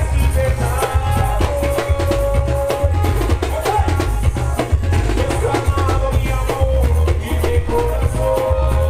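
Loud Garifuna dance music from a live show, with a heavy pulsing bass and busy drums and percussion.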